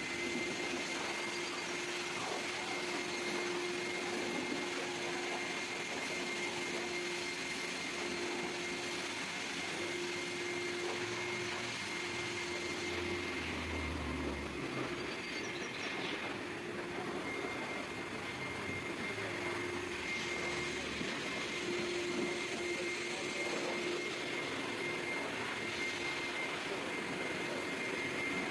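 Car wash equipment running steadily: an even rushing noise with a constant high whine through it.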